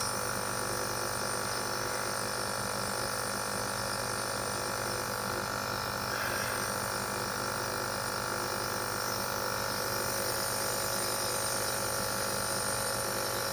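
Nebulizer's small electric compressor running with a steady hum.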